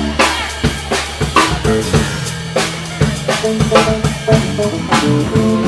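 Live band music led by a drum kit playing a busy beat on bass drum, snare and rimshots, with several hits a second over low held notes.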